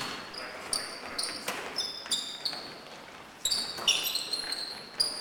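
Basketball bouncing on a gym floor several times at an uneven pace, with short high-pitched sneaker squeaks from players on the court.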